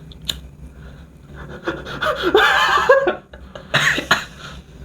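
Heavy breathing of a man smoking a kretek clove cigarette: a loud breathy stretch with a little voice in it around the middle, and a short hissy exhale about four seconds in.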